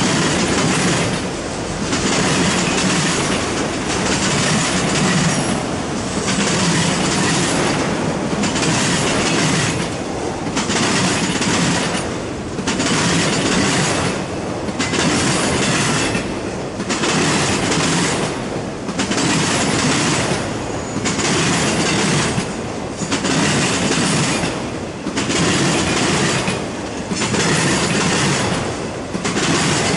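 Steel wheels of a long freight train of autorack cars rolling past on the rails, swelling and dipping about every two seconds as each car goes by.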